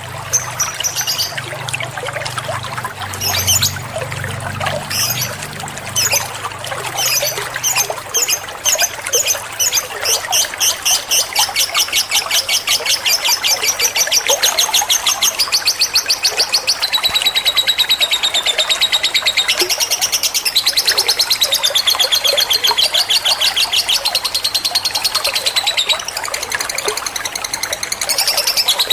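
Bird chattering in rapid, evenly repeated high chirps in the style of a lovebird, used as fill calls in a training track for a white-rumped shama. The first few seconds hold scattered chirps over a low hum. From about a third of the way in, the chirps run on steadily at about five or six a second, and the pitch drops a step near the middle.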